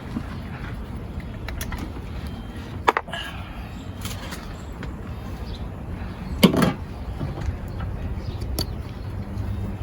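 A few sharp clicks and knocks of tools and parts being handled in the engine bay: a clear one about three seconds in and the loudest just after six and a half seconds. Under them runs a steady low rumble.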